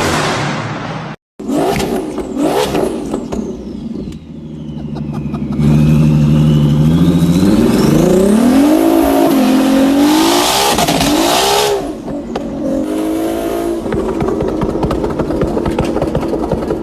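Performance car engines revving hard in a string of short clips. Engine pitch climbs and drops repeatedly, with a loud stretch of hard revving from about six to twelve seconds in, and a high whine that falls and then rises again.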